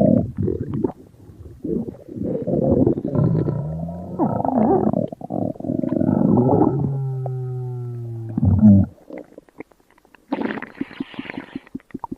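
Stomach growling and gurgling in irregular rumbles, with a long pitched growl about seven seconds in and a shorter gurgle near the end.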